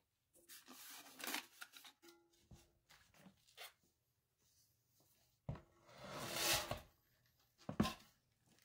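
Handling noise from a ceramic toilet tank being turned over by hand: scattered rustles and scrapes, a longer scrape about six seconds in, and a sharp knock near the end.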